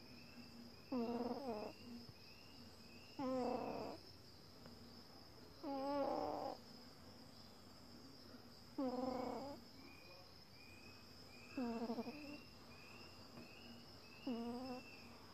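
American Shorthair kitten snoring: six short pitched snores, one every two and a half to three seconds.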